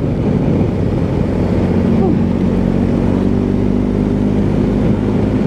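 BMW R1250 GSA's boxer-twin engine running at a steady road speed, with wind and road noise.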